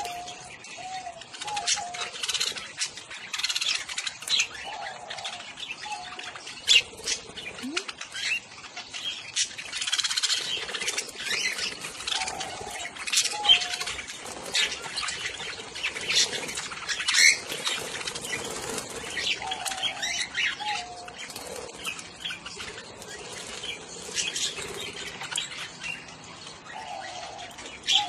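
A flock of budgerigars chattering with dense, irregular high chirps and squawks, with some wing flapping as birds shift about.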